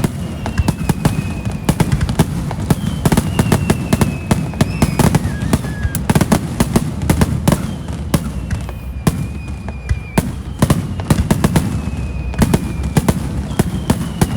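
Aerial fireworks going off in a dense barrage: many rapid sharp cracks and bangs, several a second, over a continuous low rumble. Thin whistling tones slide slowly downward now and then.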